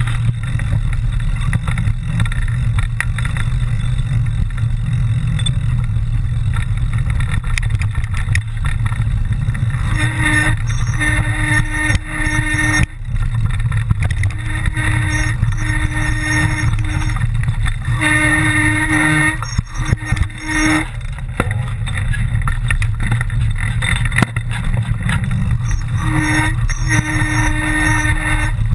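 Mountain bike descending a rough trail: continuous wind buffeting and ride rumble. From about ten seconds in there are short stretches of a steady humming tone, each lasting a second or two.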